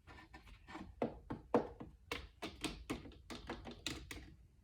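Light taps and knocks of small plastic toy dolls being handled and moved around, uneven, a few per second.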